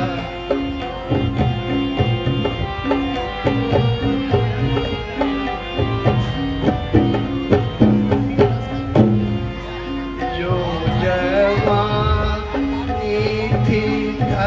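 Instrumental break in a Hindi devotional stage song: hand drums keep a steady rhythm under a held melody line, which slides in pitch about ten seconds in.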